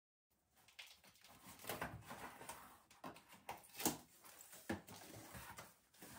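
A large cardboard box being opened by hand: flaps rustling and scraping, with several sharp scrapes and clicks.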